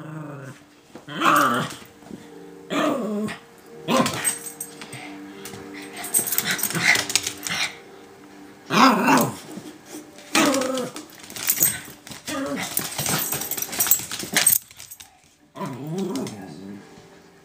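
Dogs barking and growling in short bursts, one every second or two; the owner is scolding Cachou, the white adult dog, for barking at the puppy.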